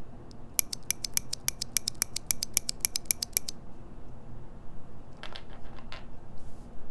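Mechanical keyboard with Zeal Clickiez 40 g switches on a polycarbonate plate: keys pressed in a fast, even run of sharp clicks, about eight a second for about three seconds, then a few softer key presses near the end.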